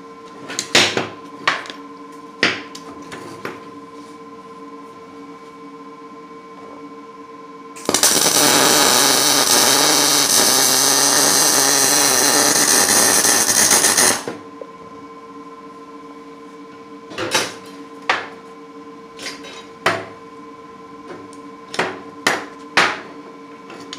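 Lincoln 210 MP MIG welder arc running for about six seconds in the middle, a steady loud crackling hiss as a bead is laid with .035 wire and C25 gas. Before and after the weld, scattered sharp knocks and clanks of the part and tools being handled on the bench.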